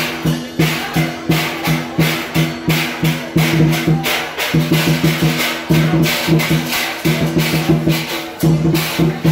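Percussion music with a fast, even beat of about three strikes a second, sharp clacking hits over a repeating low pitched tone.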